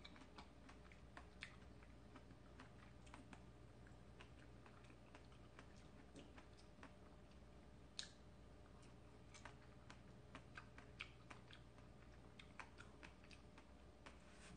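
Near silence with faint, irregular soft clicks, one a little louder about eight seconds in.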